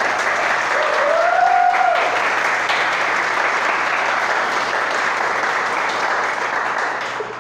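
Audience applauding steadily, fading away near the end, with a short high call rising and falling over it about a second in.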